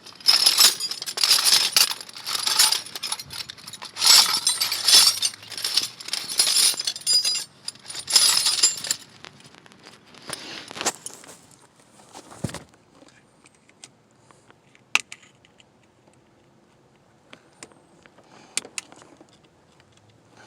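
Small metal tools scraping and clinking against the steering column's lock plate as a pick works at the snap ring: dense jingling scrapes for about nine seconds, then scattered sharp clicks.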